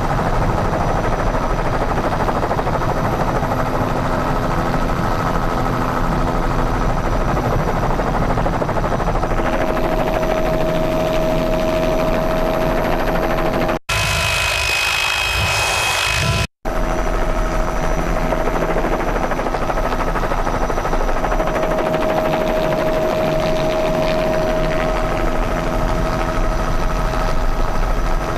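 Steady, loud drone of a helicopter heard from inside the cabin, with a few steady tones running through it. A little past the middle it cuts to a different, higher-pitched engine noise for about three seconds, then cuts back to the drone.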